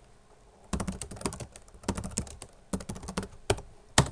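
Typing on a computer keyboard: an irregular run of keystrokes starting about a second in, ending with one louder keystroke near the end.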